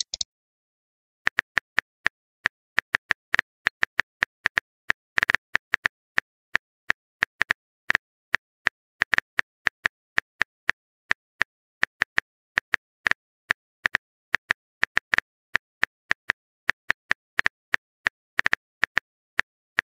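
Phone keyboard typing sound effect: quick, irregular taps, about three or four a second, starting about a second in.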